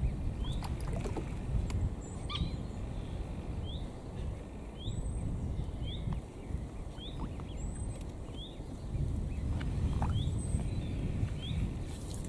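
A small bird calling over and over in short, evenly spaced chirps, with a higher note coming in between them, over a steady low rumble.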